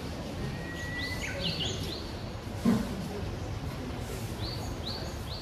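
Songbirds singing over a steady outdoor background: one long held whistle that breaks into a quick, twisting high flourish about a second in, then short rising chirps near the end. A single dull thump just before the middle is the loudest sound.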